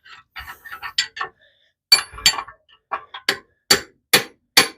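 Hand hammer blows on metal, driving the last seized piston out of a Mopar 383 V8 block. Light taps at first, then, about two seconds in, a steady run of louder strikes about two a second.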